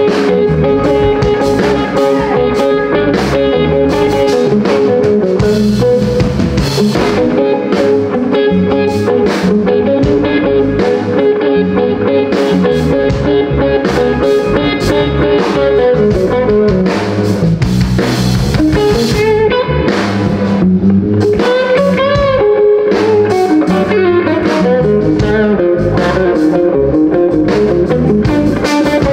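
Live blues band playing an instrumental passage: electric guitar over a drum kit and bass, with sustained, bending lead notes.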